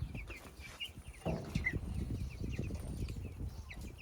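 A flock of 16-day-old Cornish Cross meat chicks peeping, many short high peeps overlapping, over low rumbling with small knocks.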